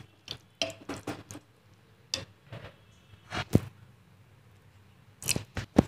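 Metal spoon scraping and knocking against the inside of an aluminium pressure cooker while stirring a wet vegetable mix: a string of short, irregular clinks and scrapes, the loudest about three and a half seconds in.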